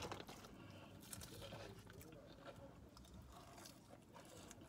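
Faint crunching and chewing of battered fried food: small crisp bites and mouth noises, with no speech.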